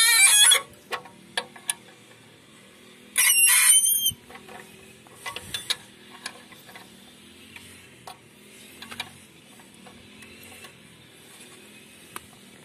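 Ratcheting wrench turning a nut on a plough's landside-bar bolt. There are two loud bursts of rapid clicking, about a second each, one at the start and one about three seconds in. The second has a high squeak in it, and a few single metallic clicks come between and after.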